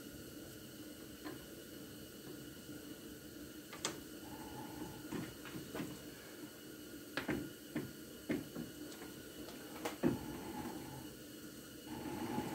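Chuck key and jaws of a four-jaw lathe chuck clicking and knocking as the jaws are adjusted by hand to true up a shaft held between the chuck and a live centre. There are several irregular sharp metallic clicks, the loudest about ten seconds in, over a faint steady hum.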